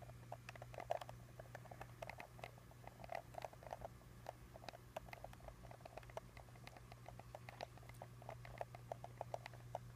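Faint, irregular light clicks and ticks, several a second and uneven in spacing, over a steady low hum.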